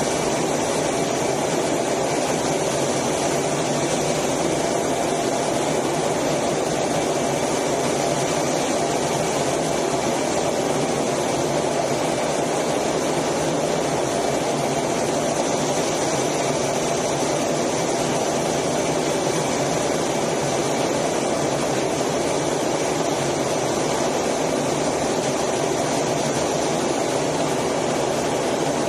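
Steady in-cockpit noise of a Blue Angels F/A-18 jet in flight: engine running with rushing air, with a few steady high tones over it.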